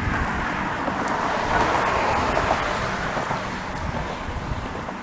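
A car passing on the road beside, its tyre noise swelling to a peak about two seconds in and then fading, with wind rumbling on the microphone.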